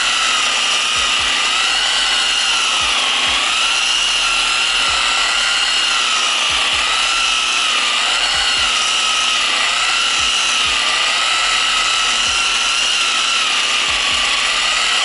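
Harbor Freight dual action polisher running while it polishes car paint with a white foam light cutting pad. It makes a steady motor whine whose pitch wavers slightly up and down, then cuts off at the very end.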